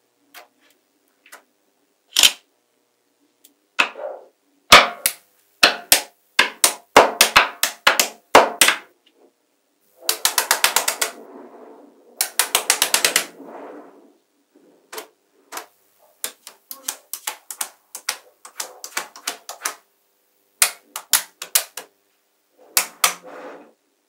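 Small neodymium magnetic balls clicking as they snap together and onto one another: scattered sharp single clicks and quick rattling runs, with two longer rapid runs of clicks about ten and twelve seconds in.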